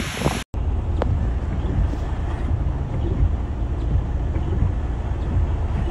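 A brief rush of splashing water from a minivan wading through a flooded street. After a sudden cut comes a steady low rumble with wind on the microphone, recorded from inside a vehicle driving through floodwater.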